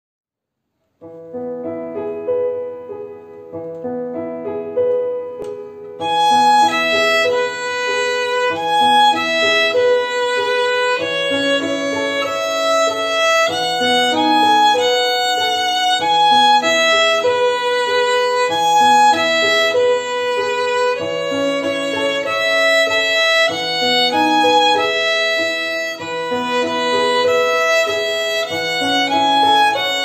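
Violin playing a simple method-book tune over a recorded accompaniment. The accompaniment starts alone about a second in, and the violin comes in about six seconds in, louder.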